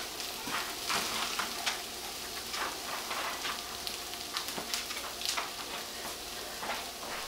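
Chicken sizzling as it fries in a pan: a steady hiss with irregular crackles and pops.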